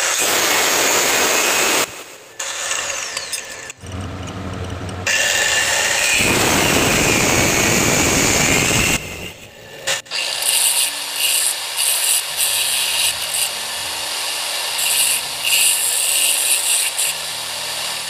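Abrasive cut-off saw cutting through a steel rod. It comes in two long loud stretches, with the saw running more quietly between and after them.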